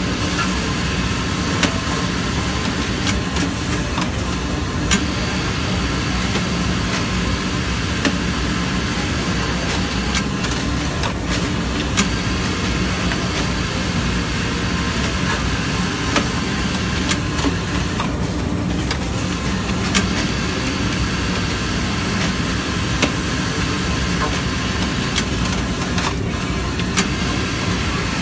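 Automatic pocket-flap sewing machine running with a steady mechanical hum, broken by sharp clicks every few seconds.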